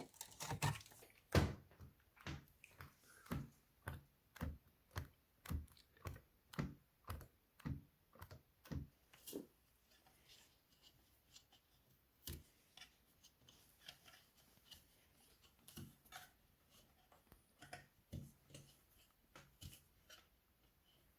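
Hard plastic clacks and knocks from a Yamaha Clavinova CLP-230 keyboard action being worked on. Regular knocks come about two a second for the first half, then give way to fainter, irregular taps.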